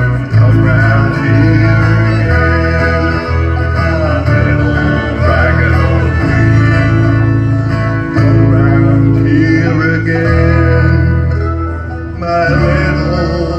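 Live bluegrass band playing an instrumental break: fiddle, banjo and acoustic guitars, with a bass line stepping along underneath.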